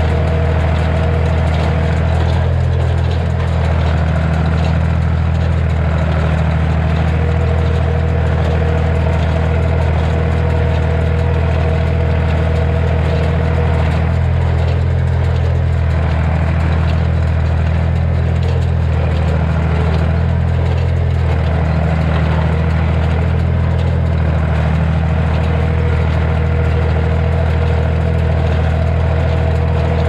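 Massey Ferguson 245 tractor engine running steadily under load, pulling a Massey Ferguson 120 square baler as it picks up hay.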